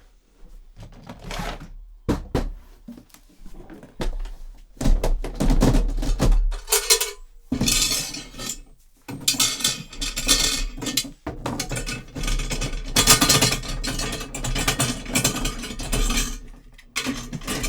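Metal objects rattled and clanked by hand as foley for a passing train: a few scattered strikes at first, then a dense, near-continuous clatter from about five seconds in.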